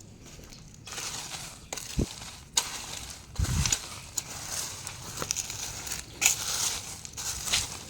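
Irregular crunching and crinkling noises with scattered clicks, a sharp knock about two seconds in and a dull thump about a second later.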